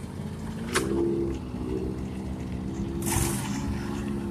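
Riding lawn mower's engine running, its note dipping and rising as the throttle changes, while the mower churns through shallow muddy water. A sharp click just under a second in and a brief hiss about three seconds in.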